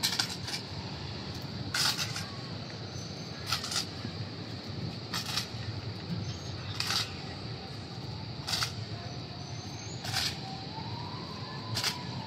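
Drill rifles being slapped and handled in unison by a silent drill platoon: sharp clacks about every 1.7 seconds, over a steady background hum. A faint wavering tone rises and falls near the end.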